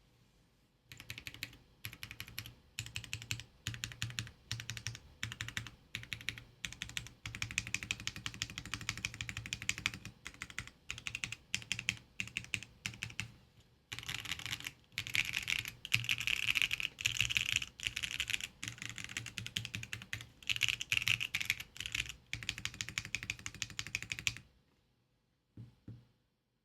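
Typing on a Mode Sonnet mechanical keyboard with Jwick Black Lotus linear switches: fast keystrokes in word-length bursts. There is a short pause about halfway, and the typing stops near the end.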